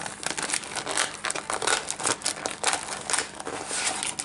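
Packaging crinkling and rustling in quick, irregular crackles as an insert is worked out of a trading-card box.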